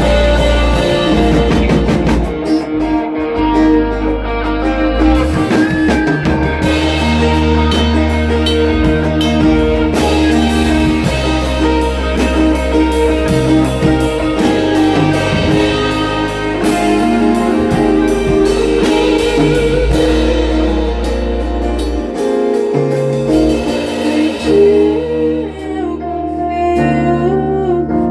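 A band playing live music with guitar, bass and drum kit, the bass dropping out briefly a little over 20 seconds in.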